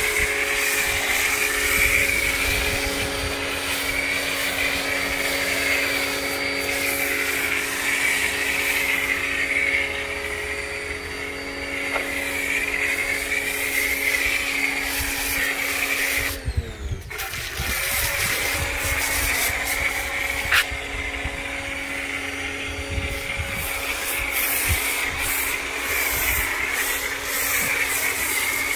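Greenworks electric pressure washer running steadily with the hiss of a foam cannon spraying snow foam. Past halfway the trigger is let go: the motor spins down and stops, then spins back up about a second later.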